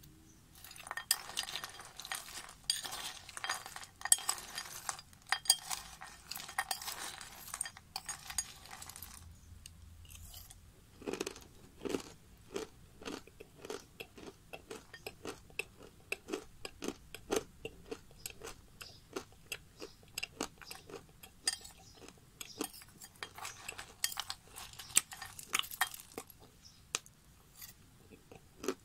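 Close-miked crunching and chewing of dry edible clay chunks. There are dense runs of crisp crackling near the start and again near the end, with steady separate crunches between them.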